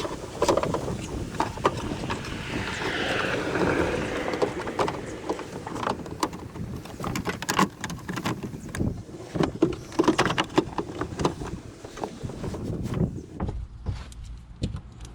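Irregular clicks and knocks from hand work on a car's tail light assembly, over a noisy background.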